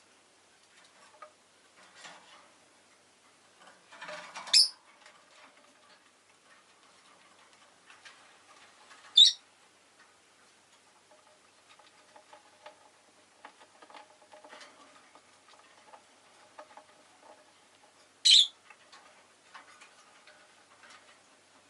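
Rosy-faced lovebird giving three short, sharp, high-pitched chirps several seconds apart, with faint scattered ticks and clicks between them.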